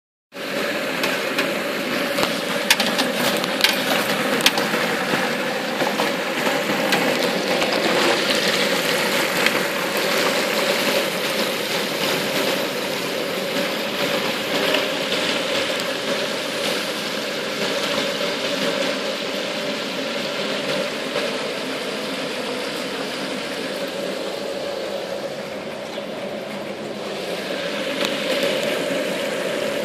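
Chicken wings deep-frying in a pot of hot oil over a propane burner: the oil bubbling and crackling steadily over the burner's constant roar, with sharper crackles in the first few seconds as the basket goes in.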